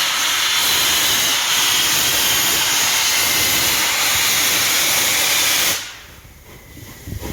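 Loud steady hiss, with the steam of the passing steam locomotive Tornado as its likely source. It cuts off suddenly about six seconds in, leaving a much quieter low rumble.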